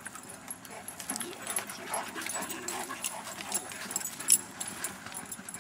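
Dogs close by making faint vocal sounds amid scattered small clicks and scuffs, with one short sharp sound a little over four seconds in.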